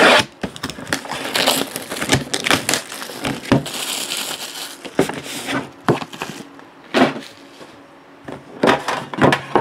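Plastic shrink-wrap being torn and crinkled off a sealed trading-card box, in irregular crackling bursts with a longer tearing hiss about four seconds in, and the cardboard box being handled.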